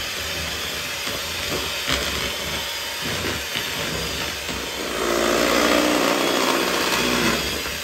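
Handheld electric mixer running, its beaters whisking chocolate cake batter in a stainless steel bowl. The motor gets louder for about two seconds near the end.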